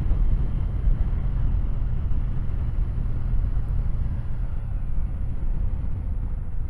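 Kawasaki W800's air-cooled parallel-twin engine running at a steady cruise, mixed with a low wind rumble on a helmet-mounted microphone.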